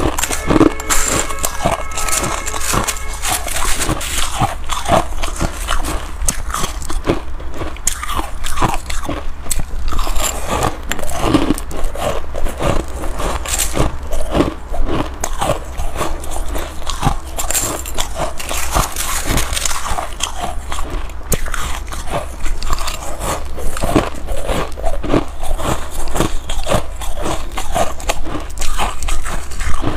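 Close-miked chewing of hard freezer frost: a dense, continuous run of crisp icy crunches as mouthfuls are bitten and chewed.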